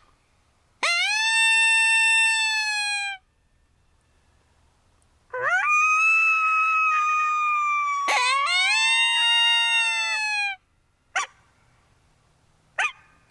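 Coyote howls: a howl of about two seconds that rises and then holds, a pause, then a longer howl of about five seconds with a second howl joining over it partway through, followed by two short yips near the end.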